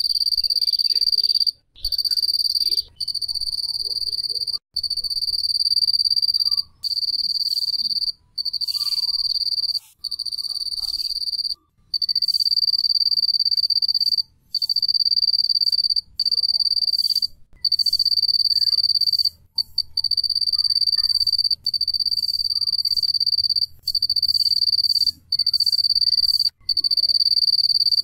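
Cricket chirping: a high, steady trill that comes in stretches of one to two seconds separated by short breaks.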